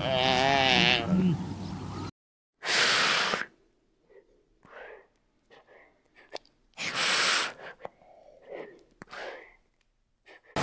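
Animal sounds: a cry with a wavering pitch, then, after a sudden silence, two loud breathy hisses about four seconds apart with softer short breaths between them.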